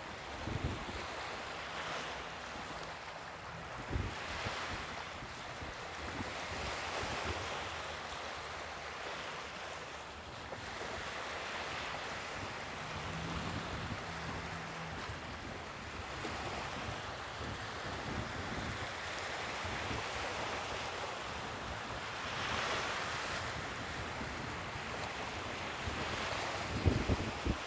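Sea waves washing onto the shore, a steady rush that swells every few seconds. Wind buffets the microphone with low thumps about four seconds in and near the end.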